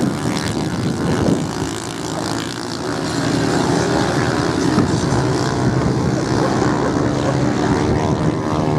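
Several off-road motorcycle engines racing together, a blended engine drone whose pitch rises and falls as the riders rev and ease off. It grows louder about three seconds in.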